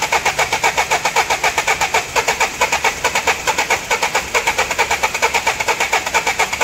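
Starter motor cranking a Nissan Terrano's diesel engine in a fast, even rhythm of about seven compression pulses a second, without the engine catching, even with a petrol-soaked rag at the air intake. Such a no-start with normal cranking points to a failed high-pressure fuel pump or injectors.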